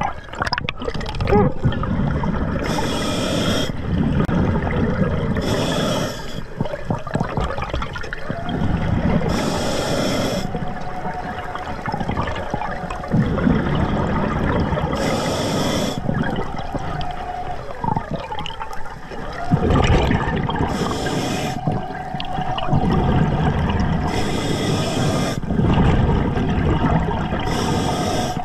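Scuba diver breathing through an Atomic regulator underwater: a short rush of air hiss on each breath, seven times at intervals of about three to six seconds, over a continuous bubbling, rumbling water noise.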